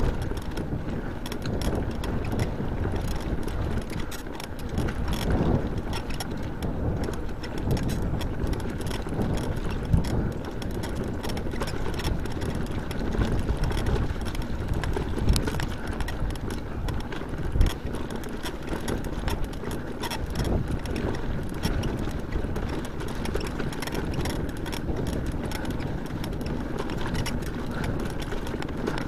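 Mountain bike ridden over a stony gravel track: the tyres crunch over loose stones while the frame and handlebar-mounted camera rattle with every jolt. There are a couple of harder knocks, about ten seconds in and again some seven seconds later.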